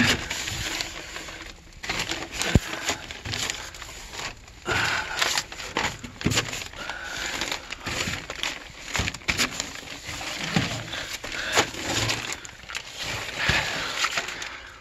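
A person crawling on knee pads through a crawlspace: irregular scuffing, scraping and rustling, with scattered clicks and one sharp knock about two and a half seconds in.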